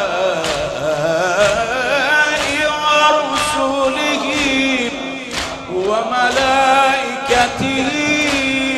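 A man singing an Arabic lament (noha) in a long, wavering, melismatic line. Sharp beats fall about once a second under the voice.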